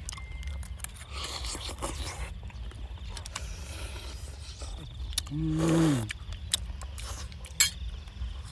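A person eating: scattered chewing and mouth clicks with light clinks of a bowl, and a short hum from the voice about five seconds in that falls off at its end. There is one sharp click near the end.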